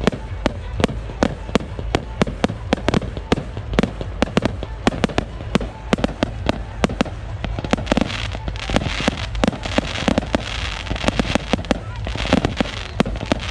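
Fireworks going off in a rapid, irregular string of sharp bangs, several a second, with spells of hissing about two-thirds of the way in and again near the end.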